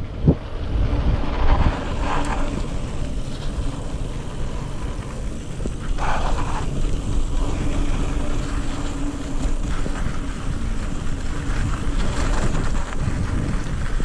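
Wind buffeting the microphone over the rumble of mountain bike tyres rolling on a dry dirt trail, with one sharp knock about a third of a second in.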